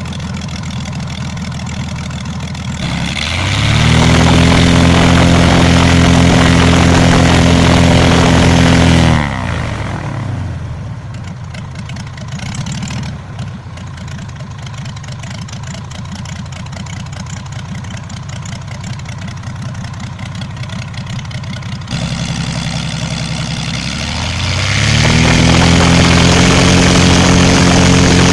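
LOM Praha M337-AK six-cylinder inverted air-cooled aircraft engine on its first run after overhaul. It idles, is run up to a higher steady speed about three seconds in, throttled back to idle about nine seconds in, then run up again near the end.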